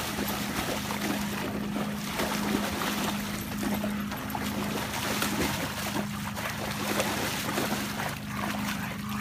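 A Rottweiler splashing and wading through shallow lake water, its legs churning the water continuously, over a steady low hum.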